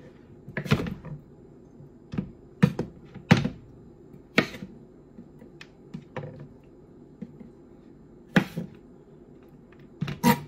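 Chef's knife knocking on a cutting board as garlic cloves are cut: about ten separate sharp knocks, irregularly spaced, not a rapid chopping rhythm.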